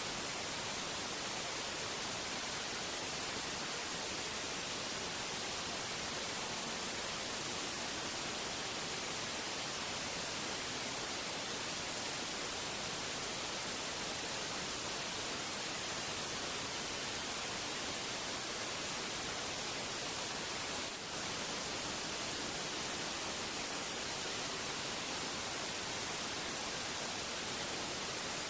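Steady, even hiss like static, with no voices or distinct events, briefly dipping about 21 seconds in.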